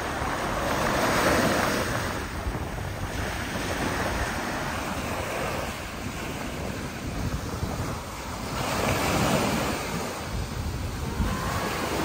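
Ocean surf breaking and washing up on a sandy beach, swelling louder about a second in and again around nine seconds. Wind rumbles on the microphone.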